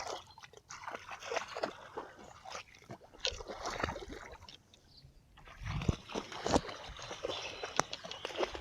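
Water sloshing and splashing in irregular short strikes, with a brief lull about halfway through.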